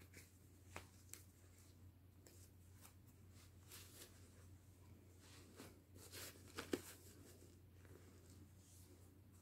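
Faint rustling of cloth and soft handling sounds as a lace-trimmed romper is pulled onto a vinyl reborn doll, with a few light taps, the loudest a little past the middle, over a faint steady hum.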